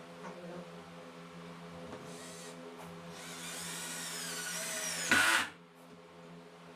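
Cordless drill running for about three seconds, starting about two seconds in, its motor whine bending and rising as it works into plywood. It is loudest just before it cuts off suddenly. A faint steady hum sits underneath.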